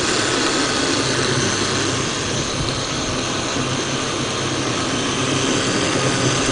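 Electric kitchen blender running steadily at full speed.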